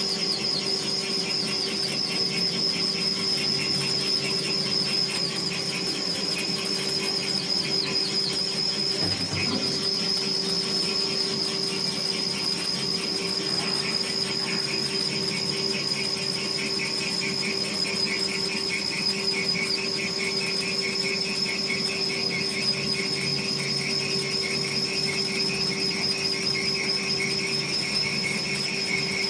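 Special-purpose twin-side CNC turning machine running: a steady high-pitched whine over a lower hum, with a fine rapid rattle between them.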